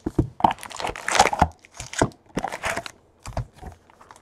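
Wrapped trading-card packs crinkling and rustling as a hand pulls them out of the box and handles them, in a string of irregular rustles and short crackles.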